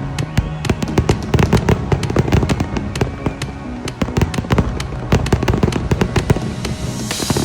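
Fireworks exploding in rapid, dense succession, many bangs and crackles a second, with music playing underneath; a hissing crackle swells near the end.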